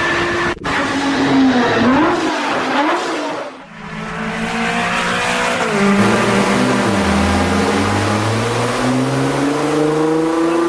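Car engine revving and accelerating. The pitch rises and falls a few times early, drops out briefly about three and a half seconds in, then climbs slowly and steadily as the car gathers speed.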